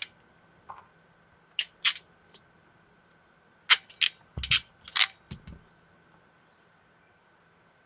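Sharp clicks and snaps from a hand crimping tool and an RJ45 plug being handled. There are a few single clicks, then a closer cluster around the middle with two dull knocks.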